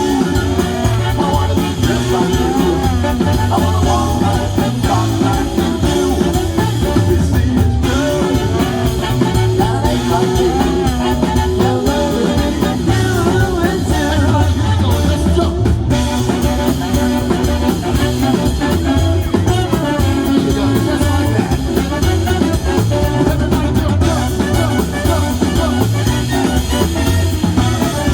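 Live swing band playing an instrumental passage: a wavering melody line over a steady bass and drums.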